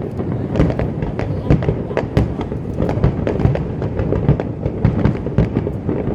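Aerial fireworks going off in a rapid, unbroken barrage: sharp bangs several times a second over a continuous low rumble.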